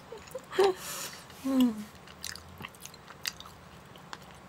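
Chewing and mouth sounds of someone eating, with scattered small clicks of plastic forks against a plastic tray. Two brief voice sounds come in the first two seconds, the second a short falling hum.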